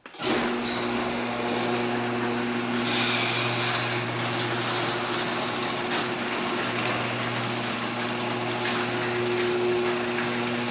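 LiftMaster 2265-267 chain-drive garage door opener starting abruptly and running steadily as it raises the door: a motor hum with the chain rattling along the rail.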